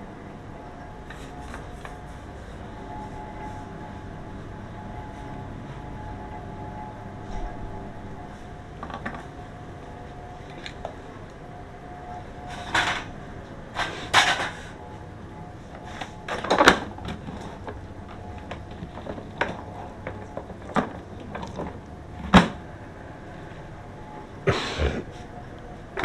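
Scattered knocks and clatter of hands handling parts and tools, the loudest bunched about halfway through and near the end, over a steady mechanical hum.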